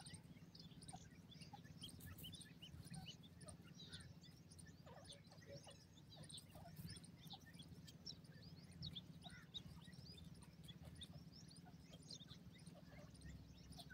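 Francolin chicks peeping: many faint, short, high chirps, scattered and overlapping, over a low steady background hum.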